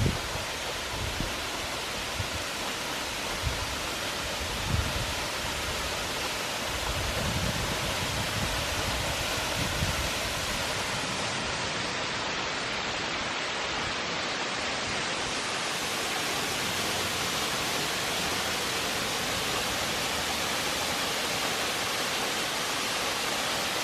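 Steady rush of falling water from a waterfall, with a few low thumps in the first ten seconds or so.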